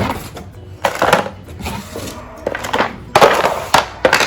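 Small plastic toy pieces and their packaging handled, with rustling and clattering in a few short bursts.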